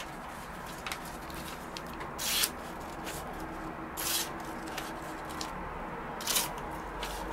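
A freshly resharpened knife blade slicing through a sheet of paper in an edge-sharpness test: three short hissing swishes about two seconds apart.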